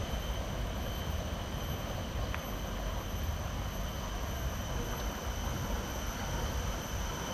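Steady outdoor background noise: a low rumble with an even hiss over it and a faint, steady high-pitched whine.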